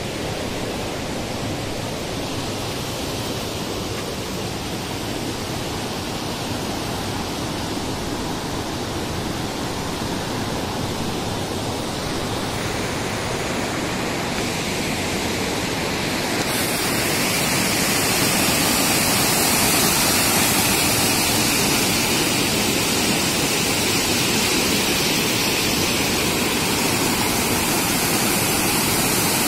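Waterfall water rushing and foaming over sloping rock slabs: a steady rush that grows louder and brighter a little past halfway through.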